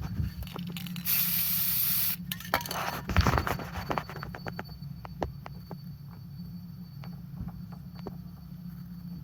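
Aerosol can of clear spray paint sprays one short burst of about a second, with light clicks and taps of handling around it.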